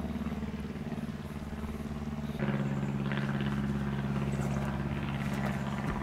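An engine running steadily, its note getting louder about two and a half seconds in.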